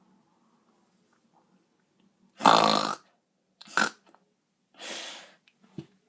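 A person making a deliberately weird throat and mouth noise: after a short pause, one loud harsh snore- or burp-like burst, then a shorter one and a softer breathy sound.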